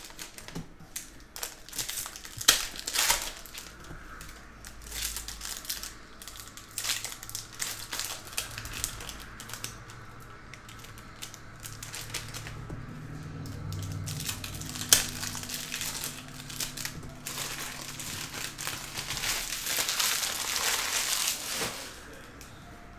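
Foil wrappers of 2021-22 Upper Deck hockey card packs being torn open and crinkled by hand: a run of crackling and rustling with a few sharp snaps, loudest and densest in a long burst near the end.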